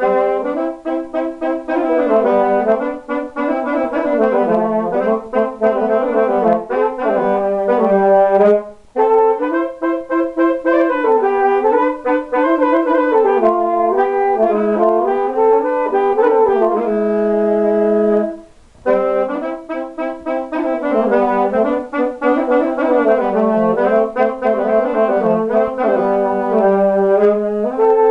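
Two saxophones playing a rumba melody as a duet in harmony. The two lines move together and pause briefly twice, the second time after a long held chord.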